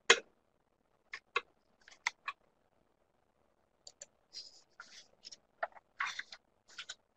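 A pause in a presenter's microphone feed: a sharp click right at the start, four fainter clicks in the next two seconds, then soft short hissing noises in the second half.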